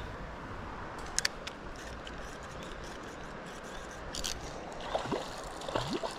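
Steady rush of flowing river water, with a few sharp clicks about a second in and again a little past the middle.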